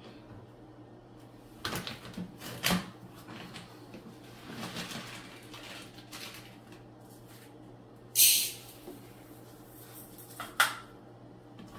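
Kitchen handling sounds: a few knocks and clatters of things being moved and put away, a short hiss about eight seconds in, and a sharp click near the end, over a faint steady hum.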